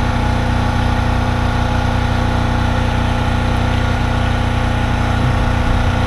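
An engine idling, a constant low drone with no change in speed.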